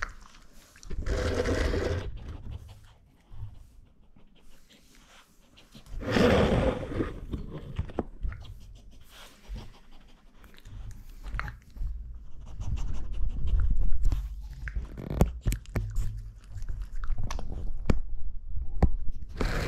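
A chihuahua chewing and crunching a cooked chicken carcass: wet chewing with many sharp bone crunches, thickest in the second half, and two louder breathy bursts about one and six seconds in.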